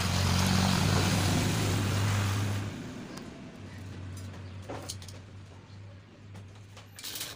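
A loud steady hiss over a low electrical hum for the first three seconds or so, then the hum alone, fainter. Bent iron grill bars give short metallic knocks as they are laid into a railing frame, once about halfway through and again near the end.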